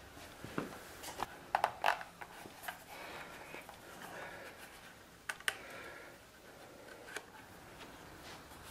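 Leather holster and small hand tools handled on a workbench: scattered light clicks and taps with leather rubbing, a quick cluster of sharper clicks about a second and a half in and a couple more around the middle.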